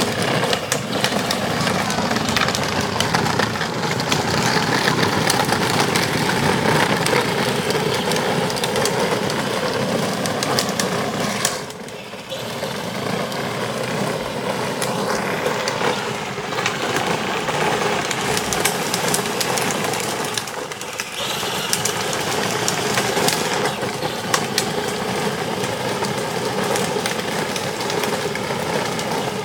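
Battery-powered children's ride-on quad running along asphalt: the electric drive motor and gearbox whine steadily under the rumble of its hard plastic wheels on the pavement, easing off briefly about twelve seconds in.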